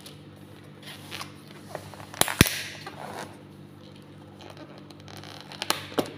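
Thin clear plastic takeaway lid being handled and pried open: crackling and clicking, with one sharp snap about two seconds in and a few more clicks near the end as it comes off.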